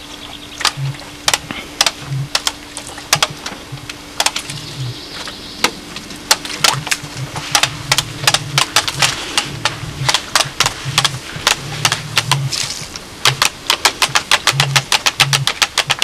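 Plastic toy wheelbarrow clicking and clattering as it is handled: sharp clicks that come irregularly at first, then turn fast and even, about four or five a second, near the end as it is pushed rolling over the grass. A faint low hum comes and goes underneath.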